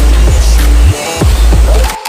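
Background hip-hop music with no vocals: long, heavy bass notes that slide down in pitch at their ends, over short, crisp percussion taps.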